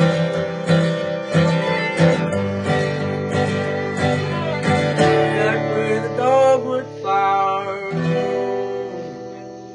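Acoustic guitar strumming with a fiddle playing over it at the close of a song. The strumming stops about eight seconds in, and the last notes ring on and fade away.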